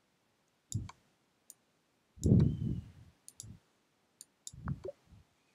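Quiet, scattered short clicks from moving pieces in an online chess game on a computer, with a few soft low thumps between them, the loudest about two seconds in.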